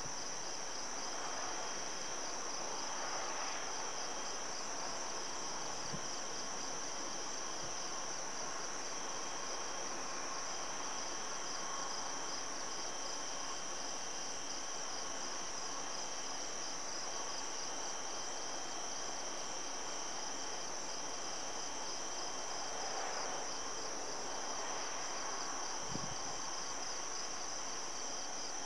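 A steady chorus of crickets trilling, with a second, lower insect trill that keeps stopping and starting. There is one faint low thump near the end.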